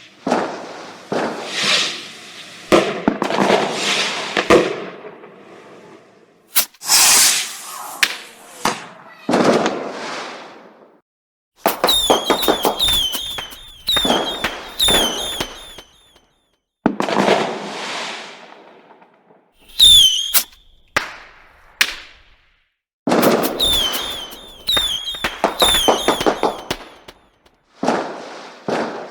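Fireworks going off: sharp cracks and bursts that fade away, with runs of rapid shrill whistles from whistling fireworks about twelve seconds in, briefly near twenty seconds, and again a few seconds later. The sequence breaks off into sudden silence several times.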